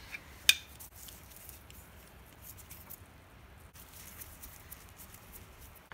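Faint metal clicks and scrapes of a small hand tool turning set screws in a cast-iron South Bend lathe apron, with one sharp click about half a second in.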